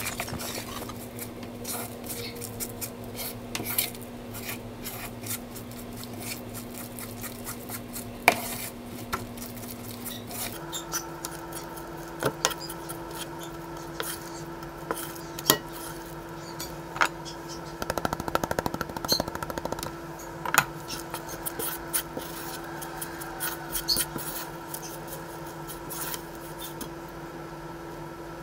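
A spoon scraping and clacking against the inside of a ceramic-coated pan while flour is stirred into a thick sweet-potato dough, in many short irregular strokes. A faint steady hum runs underneath and shifts to a higher pitch about ten seconds in.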